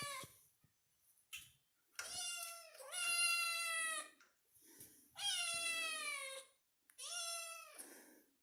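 Kitten meowing repeatedly: a run of about four high-pitched meows, each bending down in pitch at its end, with short pauses between them.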